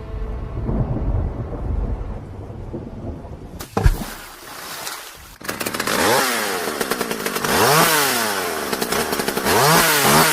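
A low rumble for the first few seconds, then a single sharp bang just under four seconds in. From about five seconds a small petrol engine is revved again and again, its pitch climbing and falling with each rev.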